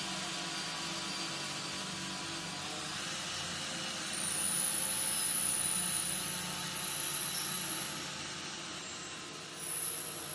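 Electric drill running steadily as it bores a hole through a timber board. About four seconds in it gets louder and a high thin whine joins, rising slightly in pitch.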